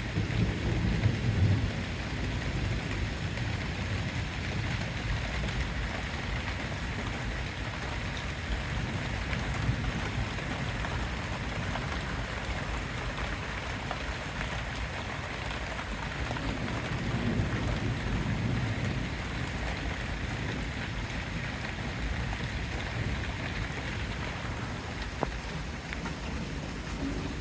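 Steady rain hissing, with low rolls of thunder rumbling in the first couple of seconds and again about two-thirds of the way through.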